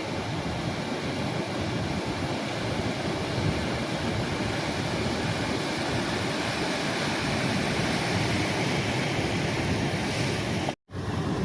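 Ocean surf breaking on the beach, a steady, continuous wash of waves. The sound cuts out for an instant near the end.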